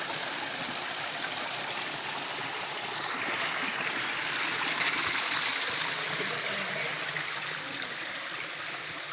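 Stream water flowing steadily, a continuous rushing that swells a little a few seconds in.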